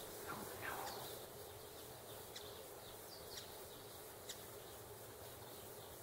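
Faint bird chirps against a quiet outdoor background: a short gliding call in the first second, then brief high chirps about once a second.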